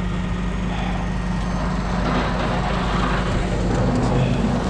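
Heavy-duty tow truck's diesel engine idling steadily, a low even hum.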